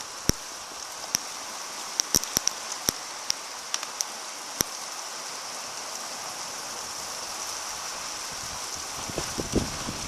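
Heavy rain pouring down in a steady hiss, with the sharp ticks of big drops hitting a hard surface close by, most of them in the first half.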